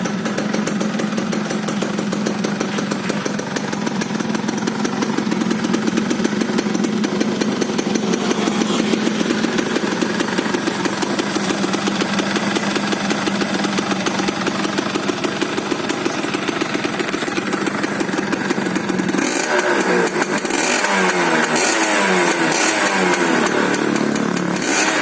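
Yamaha F1ZR two-stroke motorcycle engine running through an exhaust with a hollowed-out silencer, with a fairly crisp, raspy note. It idles steadily, then about nineteen seconds in the throttle is blipped repeatedly, the revs rising and falling several times.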